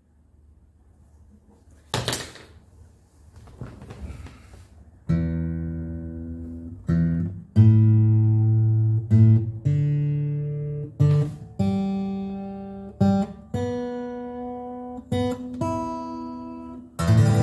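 Taylor 214CE steel-string acoustic guitar strummed in a run of ringing chords, about one every one to two seconds, after a few seconds of handling noise. This is a test play of the guitar after its neck reset and action setup.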